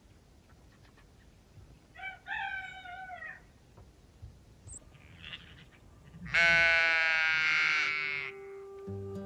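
Sheep bleating: a shorter wavering bleat about two seconds in, then a long, loud bleat about six seconds in. Guitar music starts near the end.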